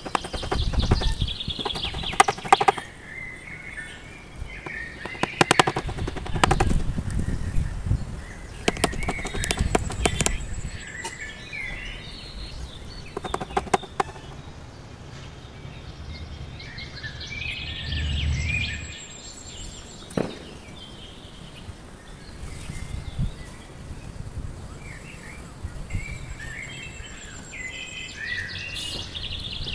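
A hammer driving nails into the plywood seat of a wooden folding chair: a quick run of sharp strikes in the first couple of seconds, with more scattered knocks a few seconds later. Small birds chirp throughout.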